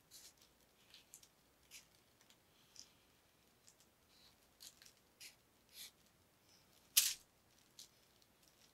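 Felt-tip marker drawing short lines on tissue paper over wood: a series of brief, high-pitched scratchy strokes, with one louder stroke about seven seconds in.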